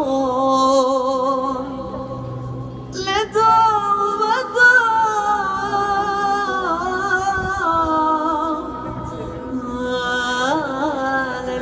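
Live singing with music: a voice holding long notes with vibrato, moving slowly from note to note.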